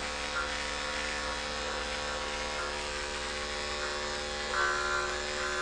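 Corded electric dog clipper with a number 7 finishing blade running steadily while it clips an Airedale's coat, a continuous motor buzz. There is a slightly louder patch about four and a half seconds in.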